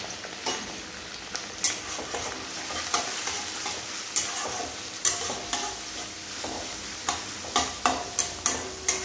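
Chopped onions sizzling in hot oil in a metal kadai while a flat metal spatula stirs them. The spatula's scrapes and knocks against the pan stand out as sharp clicks over the sizzle, coming more often near the end.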